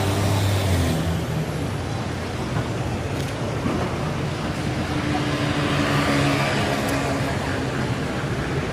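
City street traffic: a steady din of passing cars and engines running.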